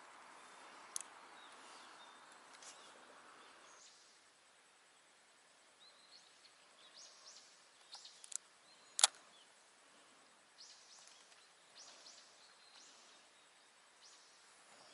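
Faint quiet on the water, a soft hiss at first, then a handful of sharp clicks from handling a spinning rod and reel, the loudest about nine seconds in, with faint high chirps scattered through.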